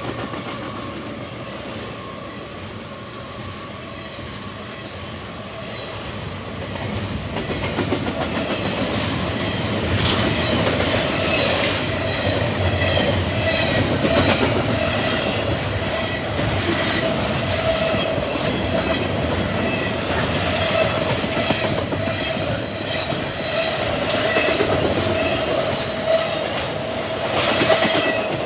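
A long double-stack intermodal freight train rolling past at speed, with a steady clickety-clack of wheels over the rail and a sustained steady squeal running through it. It grows louder over the first ten seconds or so, then holds.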